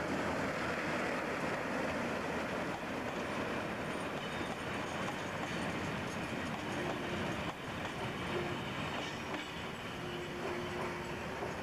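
Class 08 diesel shunter hauling a rake of hopper wagons slowly past, its engine running under the rumble of the wagons rolling by, with wheels clicking over the rail joints. A faint steady tone comes and goes in the second half.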